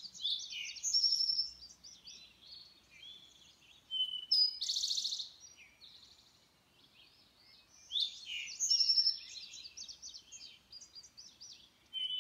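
Morning chorus of several songbirds, their songs and chirps overlapping, with louder phrases coming every few seconds, among them a dense buzzy trill about four seconds in and again near the end.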